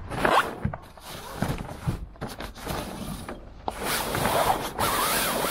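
Canvas sail cover being unfastened and dragged off a sailboat's boom: fabric rustling with scattered clicks and knocks of straps and fittings, then a louder rush of cloth sliding over the sail from about four seconds in.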